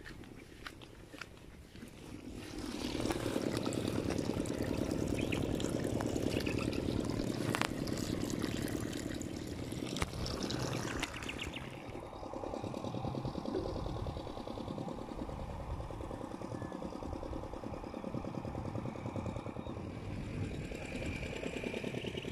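Irrigation water flowing through a rice paddy, a steady rush that grows louder a couple of seconds in and eases somewhat about halfway.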